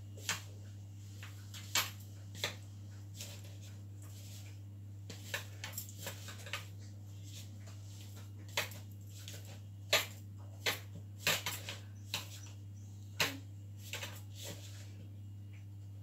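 Hands rubbing butter into flour in a plastic mixing bowl, with irregular light clicks and taps of fingers and rings against the bowl over a steady low hum.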